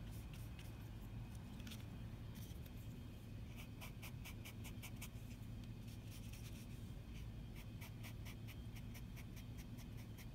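Foam brush dabbing black paint onto a foam collagraph plate: soft, quick pats, growing to about four a second a few seconds in, over a low steady hum.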